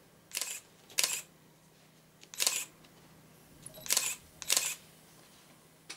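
Camera shutter clicking five times at uneven intervals, each a short, sharp snap.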